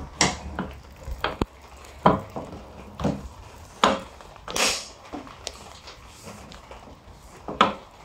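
Galvanised steel sliding latch on a trailer's rear gate being worked by hand: irregular sharp metallic clacks and clicks as the lever swings and the bolt slides, with one longer scraping sound about halfway through.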